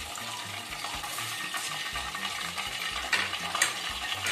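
Hot oil sizzling in a steel kadai as half-fried, sesame-coated chicken pieces are lifted out with a wire spider strainer. A few light metallic clinks sound over the frying.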